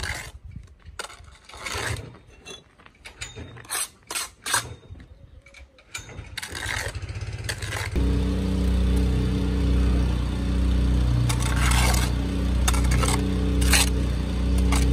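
Steel brick trowel scraping mortar and knocking on concrete blocks as they are bedded to a line: short sharp scrapes and taps. About halfway through, a steady low engine-like hum starts suddenly and runs on under a few more trowel scrapes.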